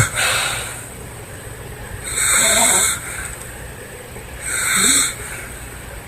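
A woman snoring in her sleep: the tail of a snore in the first half-second, then two hissing breaths, about two and four and a half seconds in.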